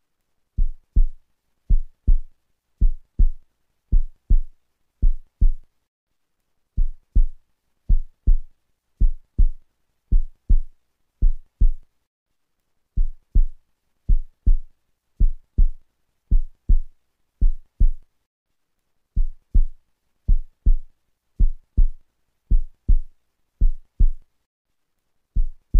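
A heartbeat-like background beat: low thumps, mostly in lub-dub pairs, repeating steadily as a looped rhythm with a short break about every six seconds.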